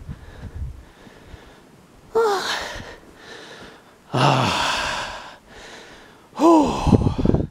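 A person's voice making three loud, breathy sounds about two seconds apart, each sliding down in pitch, like gasps or sighs.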